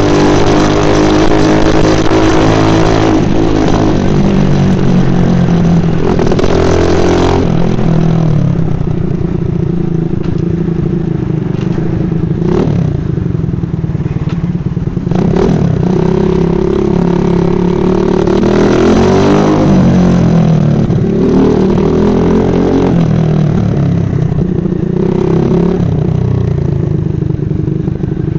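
Monkey bike's small engine running under way, its pitch climbing and falling several times as the throttle is opened and eased off, with a couple of sharp knocks about midway.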